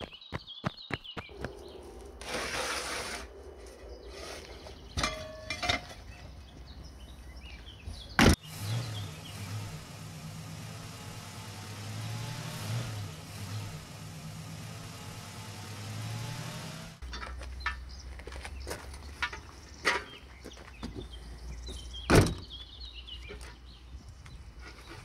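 Cartoon car engine sound effect: a steady low running hum that wavers up and down in pitch for about nine seconds in the middle. Before and after it come scattered knocks and clatters as the crate of rusty stove parts is handled, with a sharp loud knock near the end.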